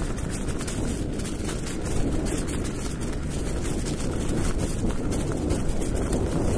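Steady low rumble of wind buffeting the microphone while moving along an outdoor trail.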